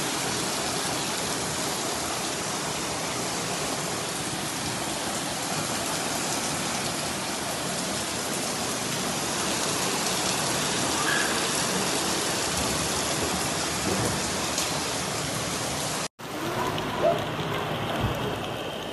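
Heavy rain falling, a dense, steady hiss of water on surfaces. About three seconds before the end it cuts off abruptly to a much quieter background with a few brief voices.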